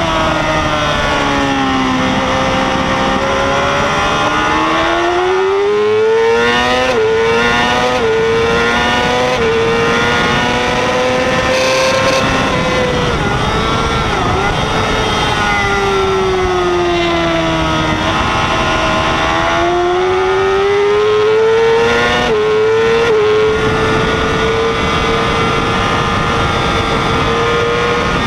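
Yamaha R6 600 cc inline-four race bike engine heard onboard at racing speed. It drops in pitch twice under braking and downshifts, climbs again through quick upshifts with a brief break at each gear change, and is held high at full throttle. A steady rush of wind runs under it.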